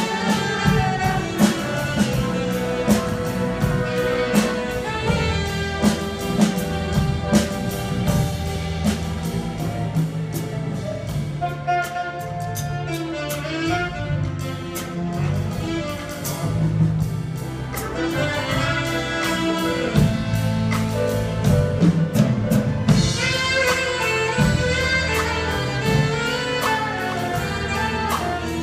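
Symphony orchestra and jazz combo playing live: a saxophone solo over strings, brass and a drum kit keeping a steady beat. The music swells fuller and brighter near the end.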